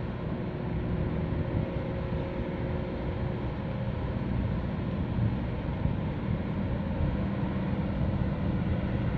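Low, steady drone of marine diesel engines from a tugboat working alongside a container ship, with a few faint steady tones in it and wind noise on the microphone.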